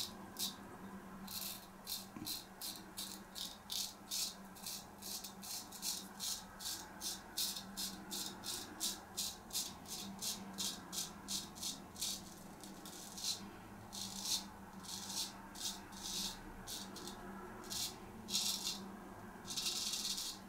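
Straight razor with a Filarmonica-type Cruff 14 blade shaving wet-lathered facial stubble in short, scratchy strokes, about two a second. Near the end comes one longer, harsher scrape, caused by holding the blade at too high an angle. A faint steady low hum runs underneath.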